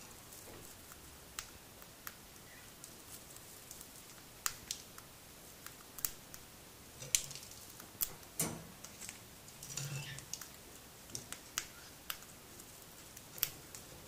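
A cockatiel cracking millet seeds off a millet spray with its beak: faint, sharp little clicks at irregular intervals, with one louder knock a little past halfway.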